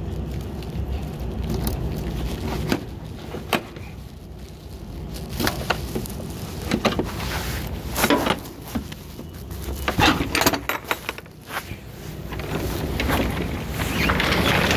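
Box truck's rear cargo door being unlocked and opened: scattered metal clicks, clanks and key jangles, with a louder rush of noise building near the end.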